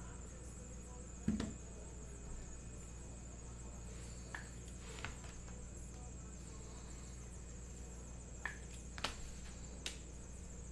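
Trading-card blaster boxes being handled on a table: one dull thump about a second in, then a few scattered light clicks and taps of cardboard packaging, over a steady faint hum and high whine.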